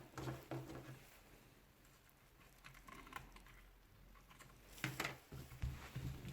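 Light clicks and small knocks from hands handling a Hilti TE 40 AVR rotary hammer while its second carbon brush is lifted out. There are a few faint ticks in the middle and a cluster of louder taps near the end.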